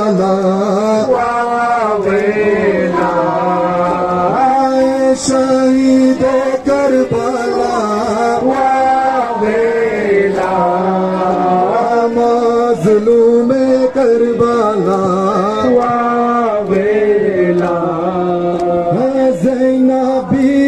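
A Muharram mourning lament (noha) sung in long melodic phrases, amplified over loudspeakers.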